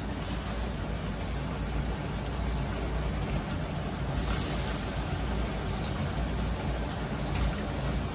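Hot ghee sizzling and bubbling in a steel karahi with onions and ginger-garlic as mutton pieces are tipped in, with a brief louder hiss about four seconds in. A steady low rumble runs underneath.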